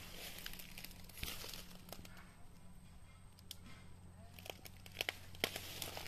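Faint rustling and crackling of grass and leaf litter, with a few sharp clicks; the two loudest come about five seconds in.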